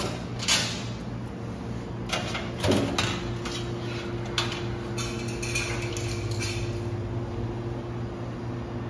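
Clicks and clattering knocks of metal parts being handled over a steady electrical hum, with a second, higher steady hum starting about a third of the way in.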